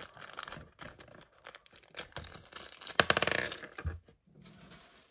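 Small plastic and cardboard toy packaging being torn and crinkled open by hand, in short irregular crackles with the busiest rustling about three seconds in.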